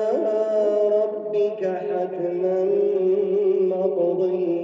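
Male reciter chanting the Quran in Arabic in melodic tajwid style, drawing out one long phrase on held, ornamented notes that shift pitch about one and a half seconds in.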